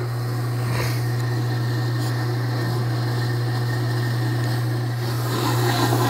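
Scotsman CM3 ice machine running in its clean cycle with a steady low hum, with a little handling rub near the machine.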